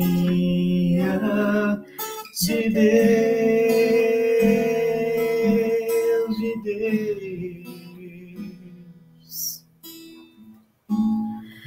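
Acoustic guitar accompanying singing in a Catholic hymn to Mary, with long held notes. The music drops low and patchy about eight seconds in, and the singing returns just before the end.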